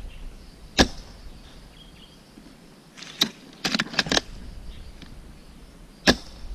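Sharp clicks and snaps from an airsoft sniper rifle being handled and fired: single snaps about a second in, three seconds in and near the end, and a quick run of three clicks around four seconds in.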